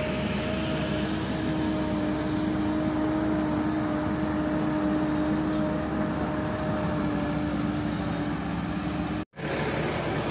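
A motor vehicle engine running steadily with a constant whine, which drops out abruptly for a moment about nine seconds in and then resumes.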